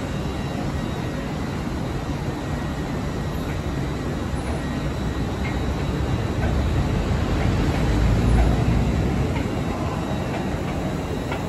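Steady low rumble and hum of an LNER Azuma train at a station platform, growing louder around eight seconds in and easing off again.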